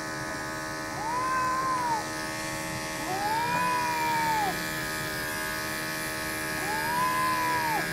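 Electric pet clippers running with a steady buzz through a matted cat's coat, while the cat gives three drawn-out meows, each rising and then falling in pitch, a sign of the pain of having its mats shaved.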